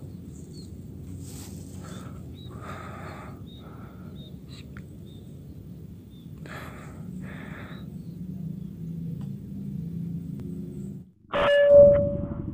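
Quiet field ambience with a few faint bird chirps, then about eleven seconds in a single sharp shot from a Mauser OD32 air rifle, followed by a short ringing tone that dies away within half a second.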